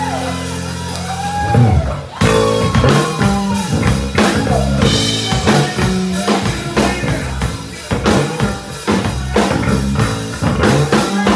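Live country band playing: acoustic and electric guitars with a drum kit. Sung lines trail off near the start, then the full band comes in hard about two seconds in and drives on with a steady drum beat.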